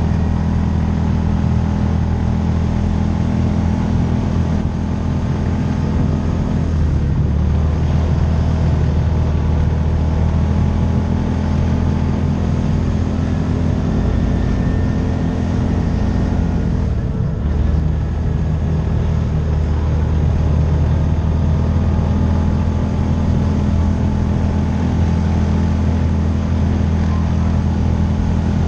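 Side-by-side UTV engine running steadily under way. Its note drops briefly about 17 seconds in, then picks up again.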